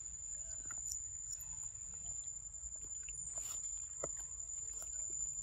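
Macaques chewing and biting into soft yellow fruit, heard as scattered small wet clicks and smacks. A steady high-pitched tone runs underneath.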